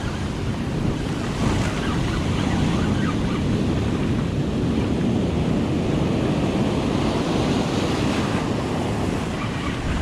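Ocean surf breaking on a beach, a steady wash of waves, with wind buffeting the microphone.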